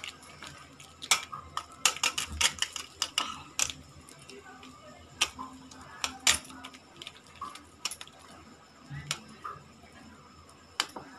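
Irregular sharp clinks and taps as a hand pats a soft mixture down into a steel strainer. The glass bangles on the wrist knock against each other and against the steel rim. The clinks come in a quick cluster in the first few seconds, then singly every second or two.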